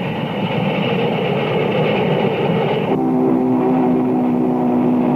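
Union Pacific 4000-class Big Boy 4-8-8-4 steam locomotive at work, a steady din of exhaust from its stacks. About three seconds in, the sound changes abruptly to its chime whistle, a long, steady chord of several notes.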